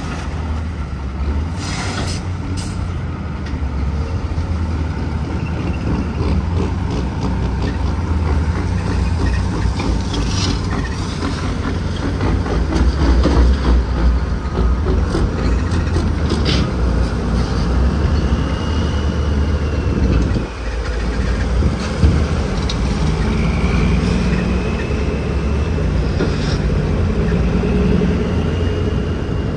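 Heavy diesel truck engine running with a steady low drone. A faint high whine rises and falls now and then, and there are a few short clicks and knocks.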